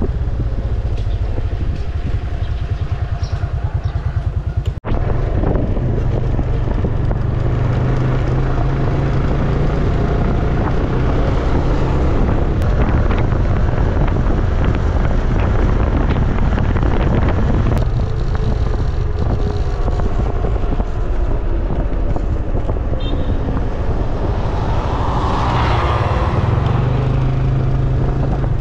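Small automatic motor scooter riding along at road speed, a steady engine drone with road noise, the sound breaking off for an instant about five seconds in.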